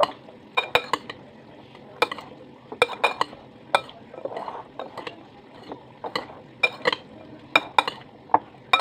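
Lettuce and cucumber salad being tossed in a glass bowl: leafy rustling with frequent sharp clinks as the glass is struck, about one or two a second at an uneven pace.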